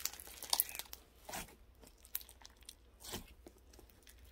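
Slime being kneaded and mixed by hand: a few scattered short pops and clicks.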